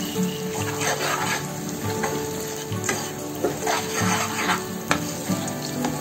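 Spoon scraping and stirring thick pumpkin halwa around a steel pan in repeated strokes, with the ghee just poured in sizzling. The halwa is cooked down to its final thick consistency.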